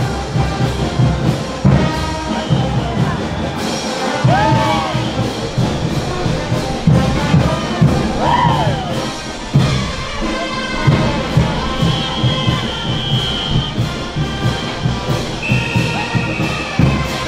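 Brass band playing caporales music, with trumpets and trombones over a steady bass-drum beat and crowd noise underneath.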